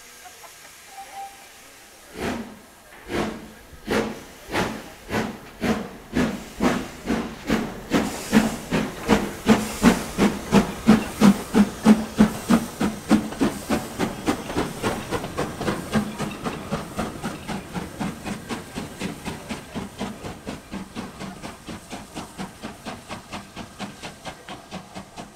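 LMS Black Five 4-6-0 steam locomotive No. 5428 starting away, its exhaust chuffs beginning about a second apart and quickening to several a second. The chuffs are loudest as it passes close by, then fade as it draws away.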